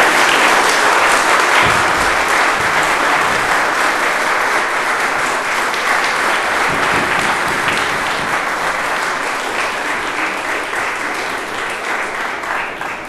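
Church congregation applauding, many hands clapping steadily and slowly dying away, then stopping at the end.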